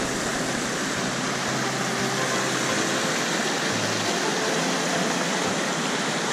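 Fast-flowing mountain stream rushing over rocks, a steady even roar of water.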